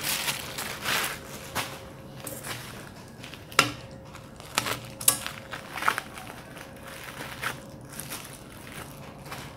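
Plastic mailer packaging crinkling and rustling as a parcel is handled and cut open, with several sharp clicks, the loudest about three and a half and five seconds in.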